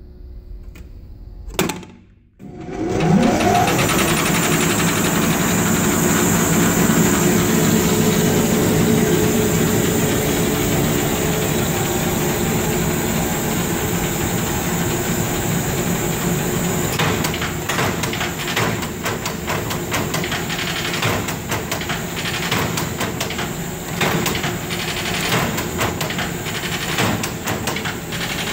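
A 1/4-inch Shuster wire straightener and cut-off machine is switched on with a click about a second and a half in. Its motor spins up with a rising whine and settles into a steady run. From about seventeen seconds on, an irregular rattle of clicks and knocks runs over the steady sound.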